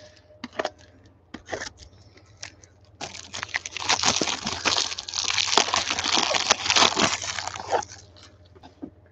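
A trading-card pack's plastic wrapper being torn open and crinkled by gloved hands: a few light taps and rustles at first, then about five seconds of continuous crinkling and tearing that stops shortly before the end.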